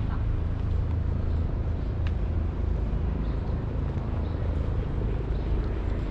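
City street traffic: a steady low rumble of vehicles on the road, with a couple of faint short ticks.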